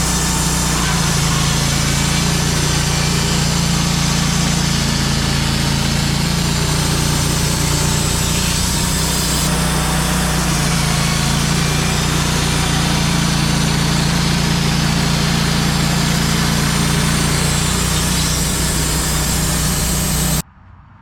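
Wood-Mizer LT35 portable bandsaw mill running steadily under load, its band blade sawing through a black walnut log, with a constant engine hum under the hiss of the cut.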